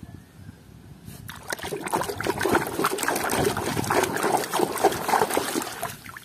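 Water splashing and trickling as a muddy plastic toy animal is rinsed and rubbed by hand. The splashing starts about a second in and goes on in a busy, irregular way until just before the end.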